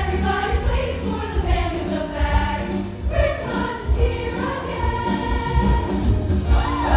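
School choir singing with instrumental accompaniment, a long note held in the second half.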